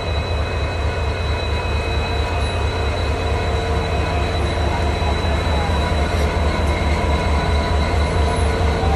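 Indian Railways diesel locomotive engine running as it moves slowly at a station, a rapid, steady low beat with thin, steady high whine tones above it.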